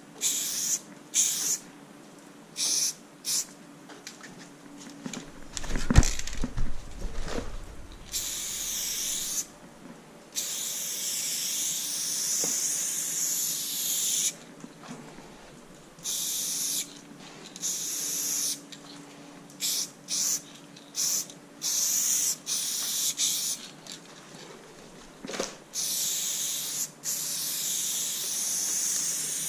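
Montana aerosol spray paint can hissing in repeated bursts, some brief and some held for several seconds, as a graffiti piece is sprayed. A loud thump with a short low rumble about six seconds in.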